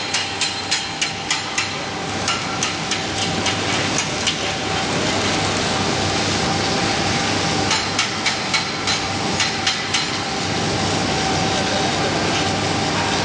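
Chipping hammer striking a steel pipe weld in quick sharp taps, about three a second, in three runs, over a steady hiss and hum.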